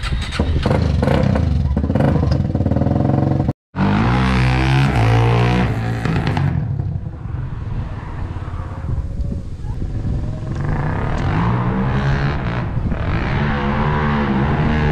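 Sport quad (ATV) engine revving as it is ridden, its pitch climbing and falling with the throttle. The sound cuts out completely for a moment about three and a half seconds in.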